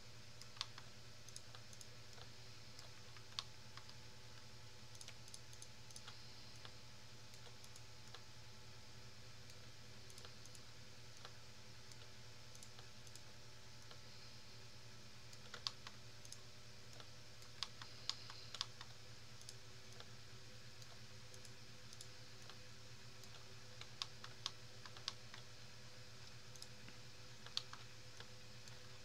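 Scattered computer mouse and keyboard clicks, about a dozen sharp ones with a few in quick clusters, over a faint steady hum.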